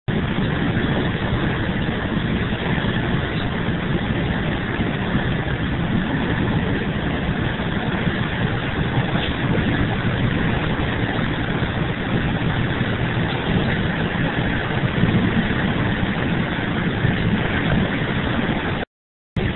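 Motorcoach engine and road noise heard from inside the cabin while cruising on a highway: a steady low rumble with hiss. It breaks off for about half a second near the end, then resumes.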